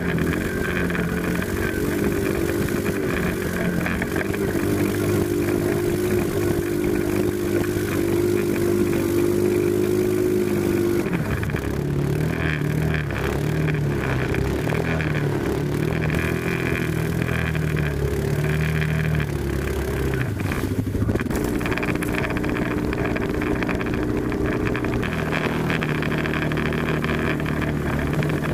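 ATV engine running continuously: steady at first, then revving up and down for several seconds from about halfway through, with a brief dip before it settles to a steady pitch again.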